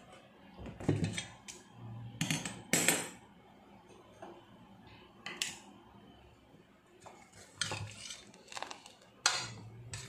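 Steel ladle clinking and scraping against a stainless steel pot of thick gravy, in a string of separate sharp knocks with short pauses between them.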